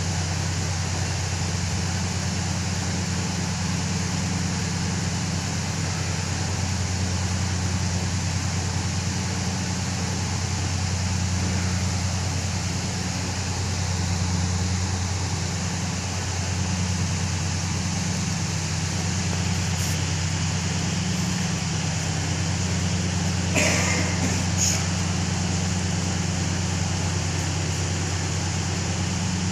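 Heavy machinery running steadily, a constant engine-like drone with a deep hum underneath. Near the end, two brief higher-pitched sounds stand out above it.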